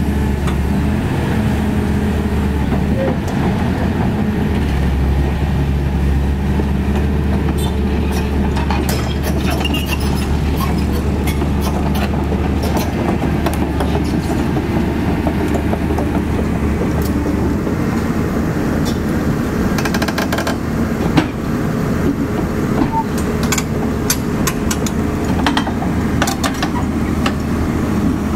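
CAT 320D excavator's diesel engine running steadily while its steel tracks clank and click as the machine travels. The clanking gets busier in the second half, with one louder knock a little after two-thirds of the way through.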